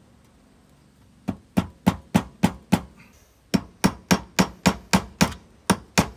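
Hammer blows driving a tri-lobe masonry anchor through a hole in a 2x6 board into brick. There is a run of six sharp strikes, a short pause, then steady strikes at about three or four a second.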